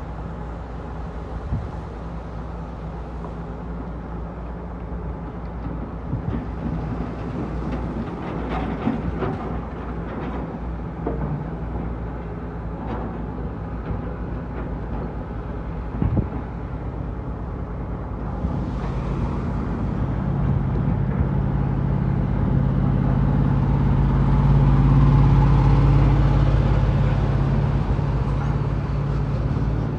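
Heavy diesel truck engine running steadily. It grows louder from about two-thirds of the way through, is loudest shortly before the end, then eases slightly. A single sharp knock comes about halfway through.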